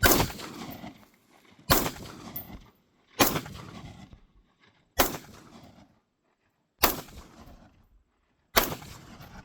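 AR-15 rifle fired six single shots in steady succession, roughly one every one and a half to two seconds, each crack trailing off in echo.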